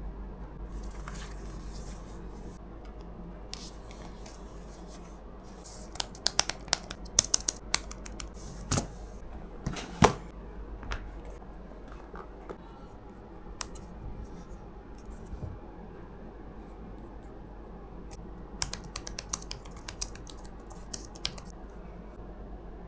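Irregular clicks and light scraping from a Logitech Keys-to-Go 2 portable keyboard being handled and typed on. The clicks come in two clusters, with one louder knock among them, over a steady low hum.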